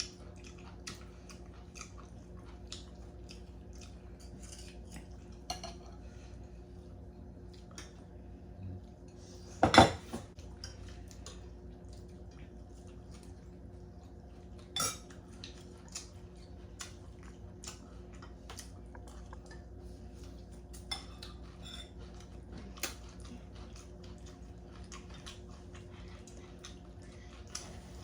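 Scattered light clicks and clinks of hard objects, with a loud knock about ten seconds in and a smaller one about fifteen seconds in, over a steady low hum.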